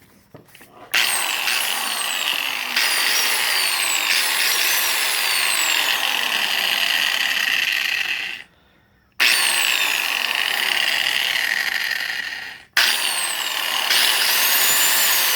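Bostitch angle grinder motor running at speed, switched on and off several times as its switch is tried with the safety lock-off mechanism removed. It starts about a second in and runs steadily, stops for under a second at about the middle, runs again, then cuts out for an instant and restarts near the end.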